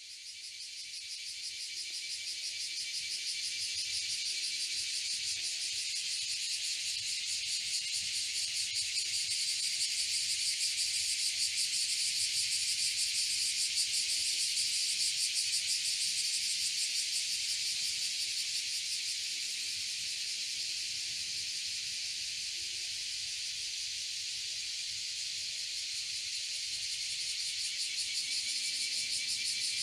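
A steady chorus of insects, a dense, shrill, rapidly pulsing sound that fades in over the first few seconds and then holds steady.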